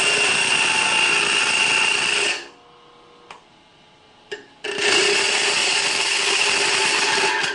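A piece of aluminum pressed against a spinning abrasive grinding wheel (stone), in two loud, steady passes of about three seconds each, with a short pause between them. The aluminum is not being cut: it smears into and clogs the pores of the stone, loading the wheel.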